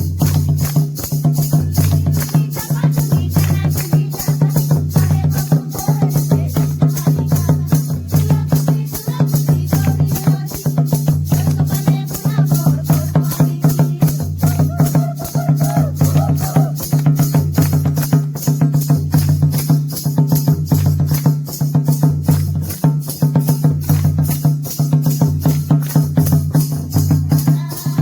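Music with a steady beat: a held low note, a repeating bass pattern and quick, even high ticks.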